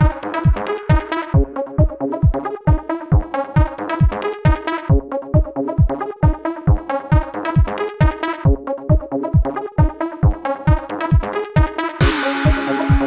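Electronic dance music with a steady kick drum at about two beats a second under layered synths; about a second before the end, a held synth note and a bright swell come in.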